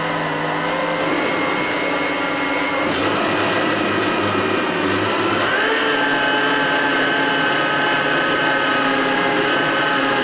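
Countertop blender motor running steadily, puréeing cooked tomatoes with their seeds. About six seconds in, its whine steps up slightly in pitch and then holds.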